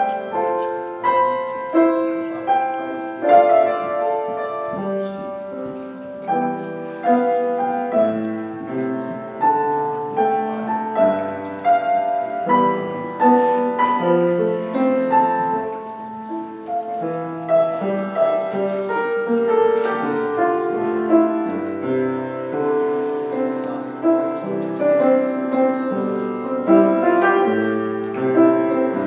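Piano playing a continuous instrumental piece of struck notes and chords, each fading after it is played.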